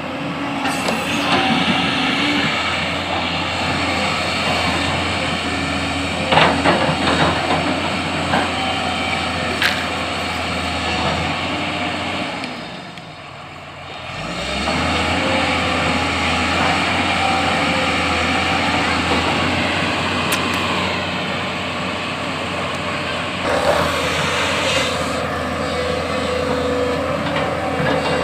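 JCB backhoe loader's diesel engine running under load, with a few sharp knocks. About halfway through the engine drops away for a moment, then picks up again.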